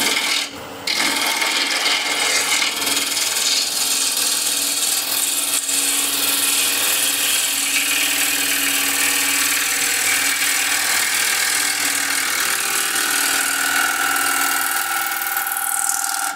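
Bowl gouge cutting into the outside of a spinning wooden bowl on a lathe: a steady, loud hiss of shavings tearing off, with a brief break about half a second in and stopping at the very end. It is a rough cut that deliberately chews up the surface.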